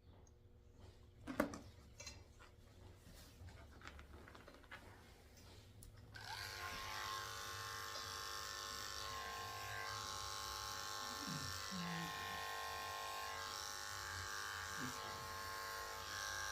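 Near quiet with a few faint clicks, then about six seconds in electric dog grooming clippers switch on and run with a steady hum.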